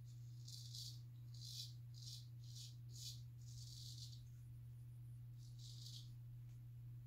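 A razor blade scraping through lathered stubble in a series of short strokes, about seven rasping scrapes, with a longer one near the middle.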